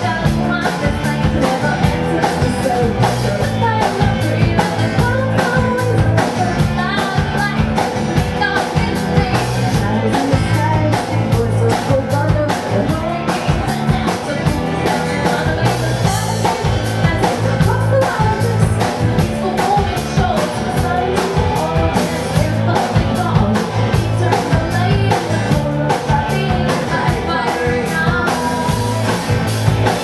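Live rock band playing a song: drum kit keeping a steady beat, electric bass, and acoustic guitar, with singing over the top.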